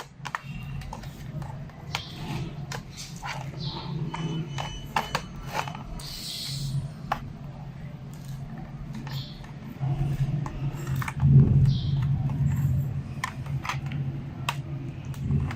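Plastic laptop back cover being pried off: many sharp clicks as its snap clips let go, with a short scrape of plastic about six seconds in.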